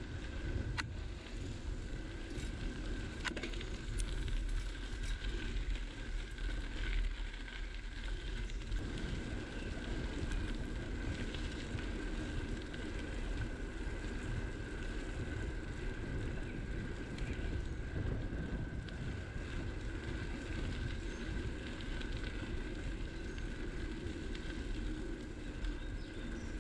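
Bicycle riding along a woodland path: tyres rolling over the surface and wind rumbling on the microphone, with a thin steady tone throughout. A few sharp clicks come in the first few seconds.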